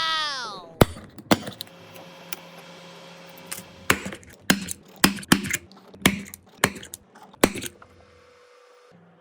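Sharp clicks and taps of hard objects being handled, about a dozen at uneven intervals, as a phone and small repair tools are set down and picked up on a work surface. A short falling tone sounds at the very start.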